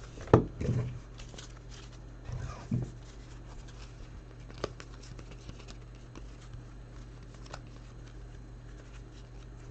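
Trading cards being handled and set out: a few soft rustles and light clicks of cards and plastic holders, with a sharp click about halfway through, over a steady low hum.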